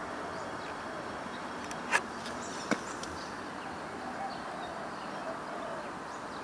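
Steady outdoor background noise with faint bird chirps, broken by two sharp clicks about two seconds in and again less than a second later.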